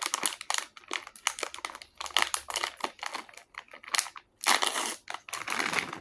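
Thin clear plastic bag of cheddar cheese crinkling and crackling as it is pulled and torn open at the top. The crackles come quick and irregular, with a longer, denser rustle about four and a half seconds in.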